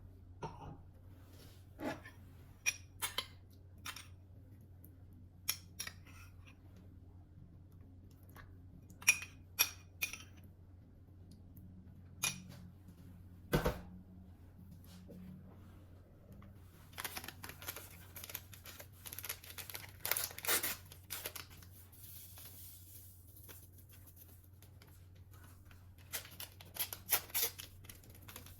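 Objects being handled by hand: scattered light clicks and knocks. About two-thirds through and again near the end come spells of rustling, with a faint steady hum underneath.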